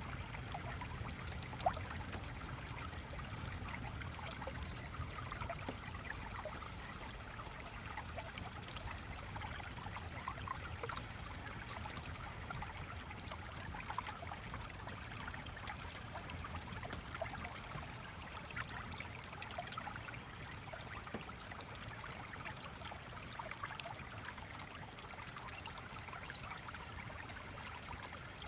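Steady flowing-stream ambience, water trickling and babbling, with faint scattered ticks through it and one sharper click a couple of seconds in.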